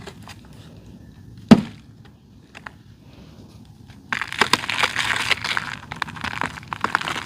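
Dry red clay dirt being crushed: one sharp crack as a chunk breaks about a second and a half in, then from about four seconds a dense run of crunching and crackling crumbles.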